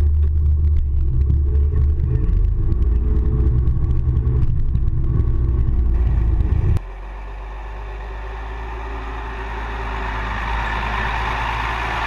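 Ford TW-25's six-cylinder turbo diesel engine pulling under load while ploughing, heard inside the cab as a steady deep drone with light rattles. About seven seconds in the sound changes abruptly to a thinner, noisier engine sound from under the tractor that slowly grows louder.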